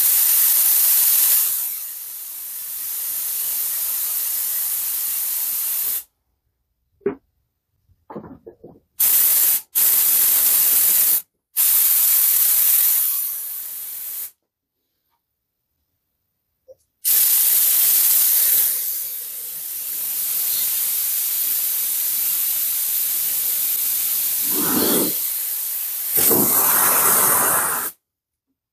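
Compressed air hissing out of an air line fed through a filter-regulator-lubricator, in five blasts: a first of about six seconds, three shorter ones, then a long one of about eleven seconds. The first and last blasts start loudest and then settle to a steadier hiss.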